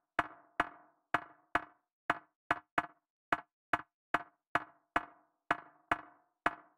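Intro music opening with a sparse run of sharp, wood-block-like knocks, about two or three a second and unevenly spaced, each with a short ringing tail.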